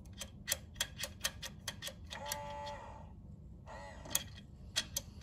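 A run of sharp metallic clicks, about three a second, then a brief squeak and a few more scattered clicks: a metal gap-verification tool being pushed and turned in under a griddle platen, catching on the steel edges.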